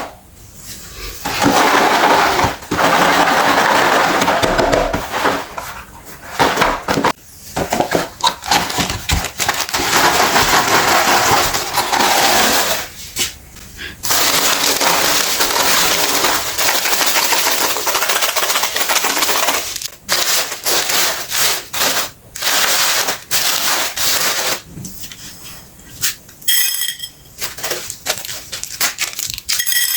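Hand-cranked meat grinder crushing something hard, with crunching and cracking in long stretches broken by short pauses.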